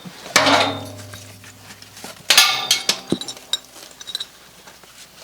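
Two loud metallic clanks with a ringing tail, about half a second and two and a half seconds in, followed by lighter scattered clinks.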